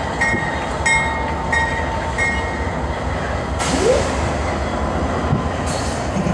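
GE AC4400CW diesel locomotive rumbling as it rolls slowly past, its bell ringing about every 0.6 seconds until the bell stops roughly two and a half seconds in. A short hiss and a brief rising squeal come just before the four-second mark.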